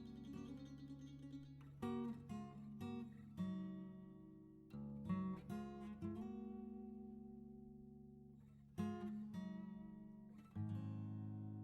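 Background music: acoustic guitar playing plucked notes and chords that ring and die away.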